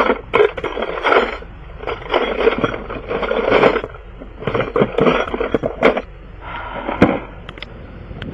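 Metal sockets and tools being rummaged through in search of a socket: several short bursts of clattering and scraping, with sharp clinks in between.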